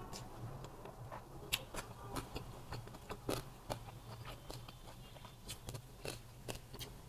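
Close-up eating sounds: bites and chewing of a rice-paper roll with crispy roast pork, a run of short sharp crunches and mouth clicks. A low steady rumble of street traffic runs underneath.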